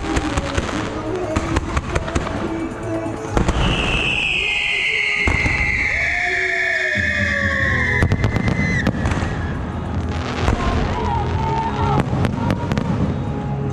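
Fireworks going off in quick succession: a dense run of bangs and crackles from shells and ground fountains. A long high whistle falls slightly in pitch from about four to eight seconds in.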